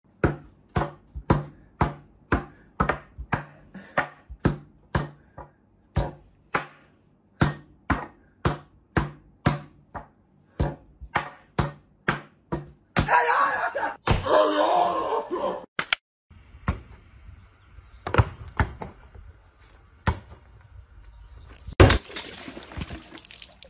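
Rapid hand slaps on a wooden tabletop, about two to three a second, each a sharp smack with a dull thud. The slapping runs for about thirteen seconds, then gives way to a few seconds of louder, noisier sound and a few scattered knocks.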